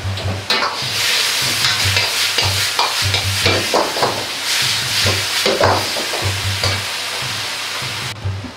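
Chicken and eggplant pieces sizzling in a hot wok as a ladle stirs and tosses them, with short scrapes and knocks of the metal ladle against the wok. The sizzling stops suddenly near the end. Background music with a steady low beat plays underneath.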